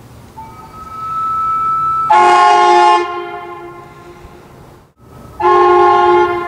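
Two blasts of semi-truck air horns mounted on a Honda Civic: a low-pitched and a high-pitched horn sounding together as a loud, chord-like blare, each about a second long. The first blast dies away over a second or so. A thinner steady tone sounds for about a second and a half before the first blast.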